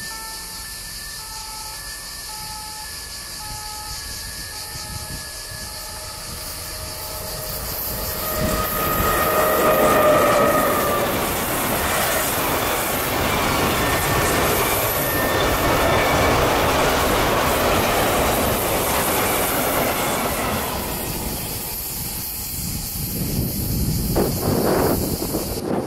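Freight train of open box wagons passing at speed: a rumble and clatter of wheels on rail that builds as it arrives, with a brief high squeal about ten seconds in. It stays loud while the wagons go by and then fades.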